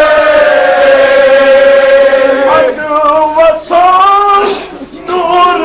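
A man's voice chanting in a sung recitation: one long held note, then shorter melodic phrases with brief breaks between them.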